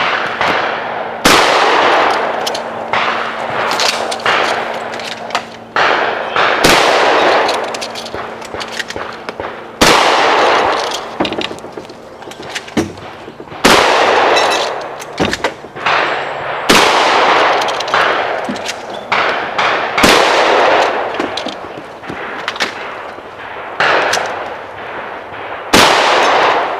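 A shotgun fired in a long string of shots, each a sharp blast with a short ring-out. The shots come roughly one to three seconds apart, with a few longer gaps.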